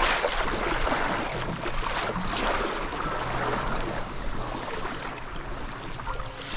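Water rushing and splashing along the hull of a wooden sailing canoe moving fast through choppy waves, with surges of spray near the start and again about two seconds in.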